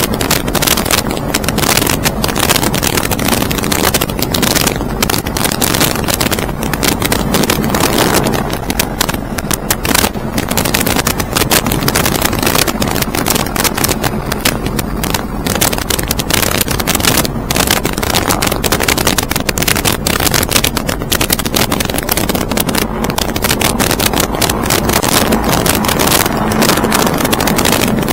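Aircraft engine running steadily in flight under loud, constant wind buffeting on the microphone.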